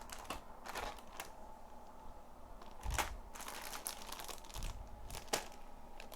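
Plastic bags of model-kit runners crinkling and rustling as they are handled and sorted, with scattered light clicks; the sharpest rustles come about three and five seconds in.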